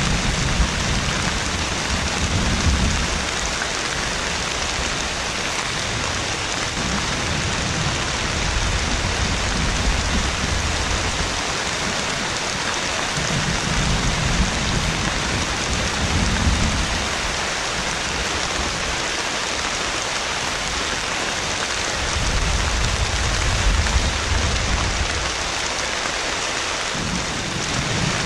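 Heavy rain falling steadily, with several low rumbles of thunder that swell and fade every few seconds.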